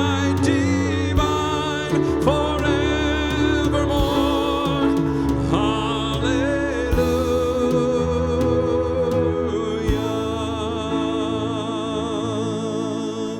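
Slow worship music: a singing voice holding long, wavering notes over a sustained low accompaniment, with a soft low beat every few seconds.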